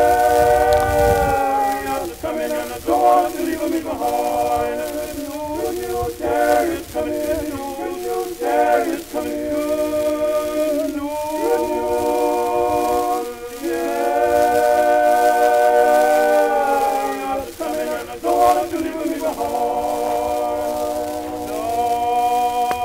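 A choir singing a spiritual in harmony, with long held chords near the start and again about two-thirds of the way through, and shorter moving phrases in between.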